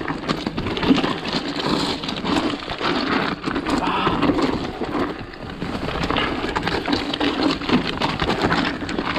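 Mountain bike ridden down a rough dirt trail: tyres crunching over dirt and roots, with a dense, irregular clatter of chain and frame rattle and wind rushing on the microphone.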